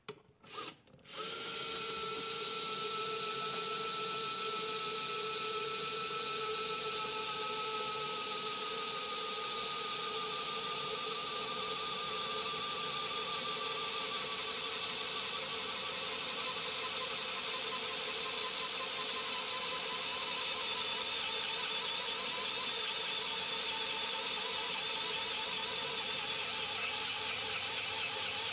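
Vessel 220USB P1 electric screwdriver's small motor driving a 7/32-inch drill bit into a thin metal box cover, running steadily from about a second in. Its whine sinks slowly in pitch over the first dozen seconds as the motor slows under the load of boring through metal.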